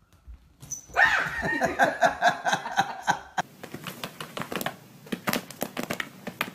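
An animal whining in pitched, bending cries for about two and a half seconds. Then a quick run of clicks and taps as a cat paws at a tablet screen game.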